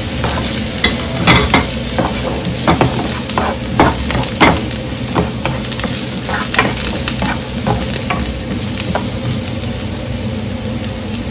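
Garlic, onion and ginger sizzling in olive oil in a nonstick frying pan as a spatula stirs them, with frequent sharp scrapes and taps of the spatula on the pan. The taps thin out over the last few seconds.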